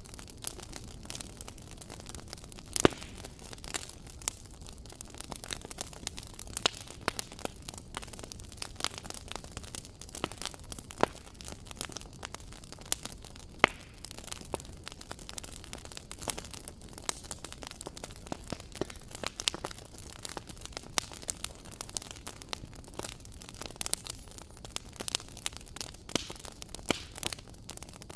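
Wood fire crackling in a fireplace: irregular pops and snaps over a steady soft hiss, with two sharper pops, one about three seconds in and one near the middle.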